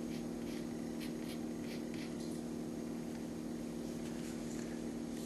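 Pencil scratching lightly on a small paper art card in short strokes, over a steady low hum.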